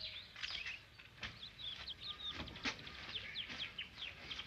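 Small caged bird chirping: an irregular run of short, high chirps, each falling quickly in pitch.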